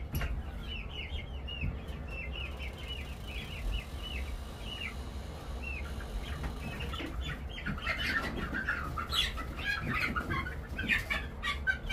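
Chickens in a coop calling: a run of short, high peeps, then from about eight seconds in louder, denser clucking and squawking with wing flaps and knocks as one of them is being caught. A steady low hum runs underneath.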